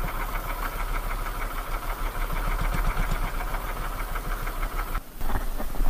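Small motorised outrigger boat's engine running steadily under way, a fast even chugging with a low rumble. It cuts off abruptly about five seconds in.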